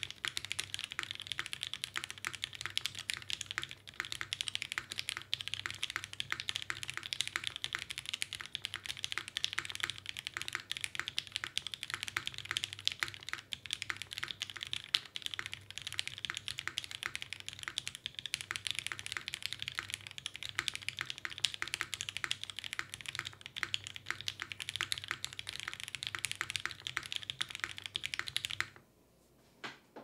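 Continuous fast typing on an Iron165 polycarbonate-case custom keyboard with lubed Gateron Oil King linear switches on an ABS plate, no dampening, and GMK keycaps: a dense stream of key clacks. The typing stops near the end, with one lone keypress after it.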